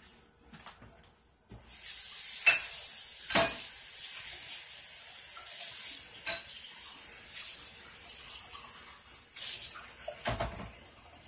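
Steady hiss of running water, louder for the first few seconds and then quieter, with a few sharp clinks.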